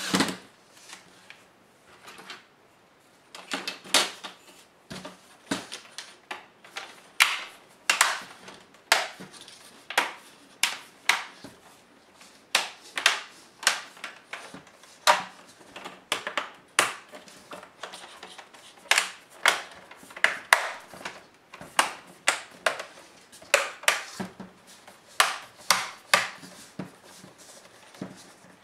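Irregular sharp clicks and taps, about one or two a second, of small laptop parts being handled and worked by hand during disassembly.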